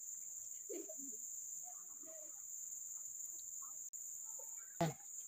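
Steady high-pitched drone of forest insects, with one sharp knock near the end.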